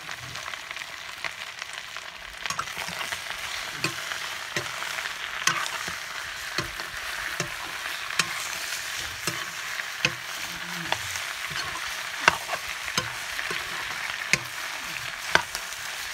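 Chicken pieces sizzling in hot oil in a metal wok, the sizzle growing a couple of seconds in, while a metal spatula stirs them with sharp scrapes and knocks against the pan every second or so.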